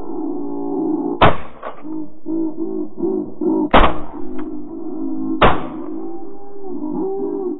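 Three shotgun blasts from a Browning A5 semi-automatic, a little over a second in, near the middle and about two-thirds through, fired at geese passing overhead. Under them geese honk continuously.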